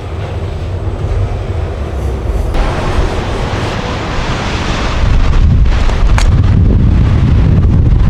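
Gale-force wind buffeting the microphone: a heavy low rumble with a rushing hiss, swelling in gusts and growing louder about five seconds in.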